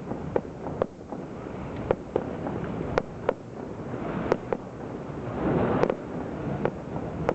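Aerial firework shells bursting: about ten sharp bangs at irregular intervals over a continuous rumble of further bursts, with the rumble swelling about five and a half seconds in.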